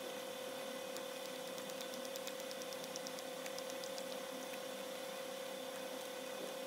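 Steady electrical hum, with a faint run of quick clicks about one and a half to four seconds in.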